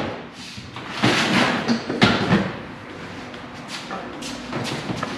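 Rummaging through a barrel of packed holiday items: rustling handling noise about 1 and 2 seconds in, then a few light knocks and clicks as things are moved.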